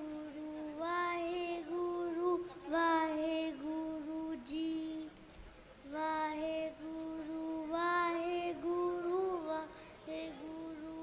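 A boy singing solo through a microphone, drawing out long vowel notes with small turns of pitch, in phrases of a few seconds broken by short breaths.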